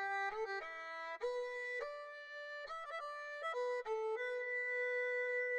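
Background music: a single-line melody of short notes, settling into one long held note near the end.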